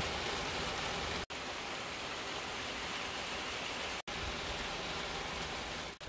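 Heavy rain falling in a downpour, a steady even hiss that drops out briefly twice, about a second in and about four seconds in.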